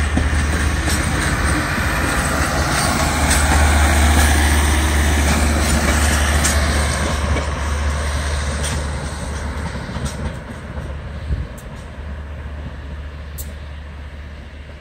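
Passenger train coaches rolling along the rails, with a steady rumble and a few sharp clicks. The rolling noise fades over the last several seconds as the train moves away.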